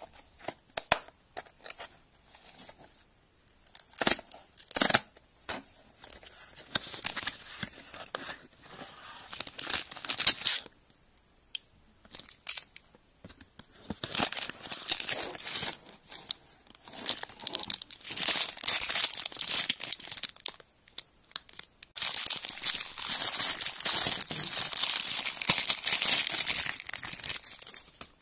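Crinkling and tearing of a thin, crinkly material being handled. It comes in stretches of several seconds with short pauses, after a few sharp clicks in the first seconds.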